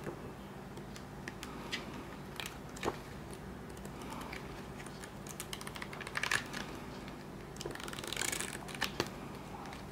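Pages of a softcover booklet being turned and flicked by hand: light paper rustles and page flaps, with sharper snaps scattered throughout and a longer rustle about eight seconds in.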